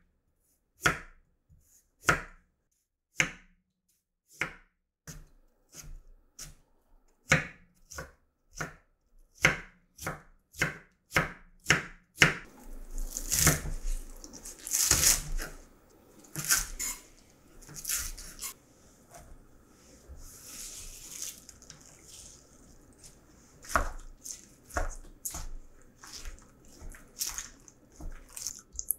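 Kitchen knife cutting on a wooden cutting board. First come separate slicing strokes through a carrot, about one a second and quickening. After about twelve seconds it turns to denser, quicker cutting through green onions.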